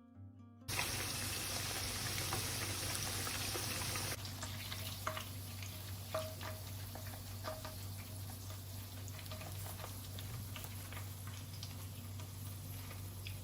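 Food sizzling in hot oil in a pan during a stir-fry, very loud for the first few seconds and then settling to a steadier sizzle, with scattered clicks of a spatula against the pan as it is stirred.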